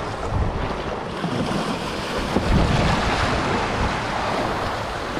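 Strong wind buffeting the microphone over choppy sea waves washing against the shoreline rocks. The surf swells a little louder about halfway through.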